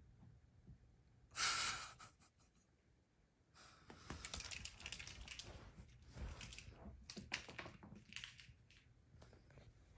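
Cat pawing and scratching: a short sharp rustle, then several seconds of quick scratching and tapping.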